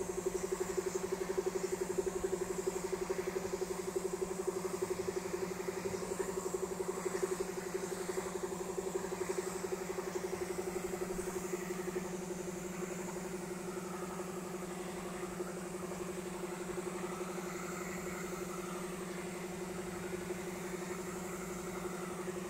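Air compressor running with a steady, fast-pulsing hum, feeding a spray gun, with a faint hiss of the gun spraying paint.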